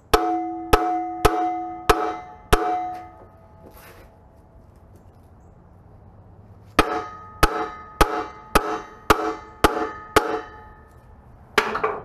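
Hammer blows on the steel chain-drive housing of a Toro power box rake, each one ringing like struck metal: five blows about every half second, a pause of several seconds, then seven more at the same pace and a quick pair near the end.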